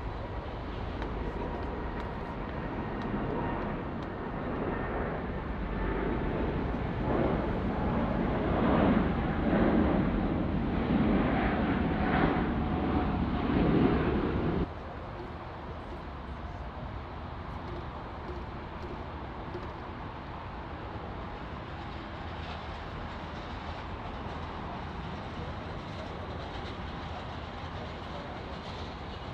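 Jet airliner engines with a whining tone, a roar building up to a loud peak, then cutting off abruptly about halfway through and leaving a steady lower rumble.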